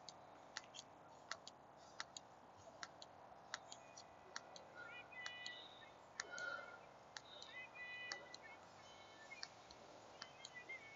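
Faint, irregular sharp clicks scattered throughout, with short high chirps about halfway through and again near the end.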